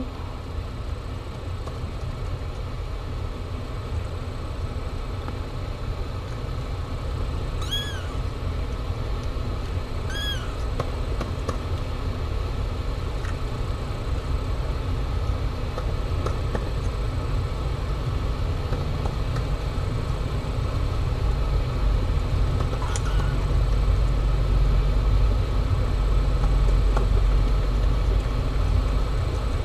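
Mother cat purring steadily while her newborn kittens nurse, the purr growing louder in the last third. Two brief high-pitched kitten mews come about 8 and 10 seconds in.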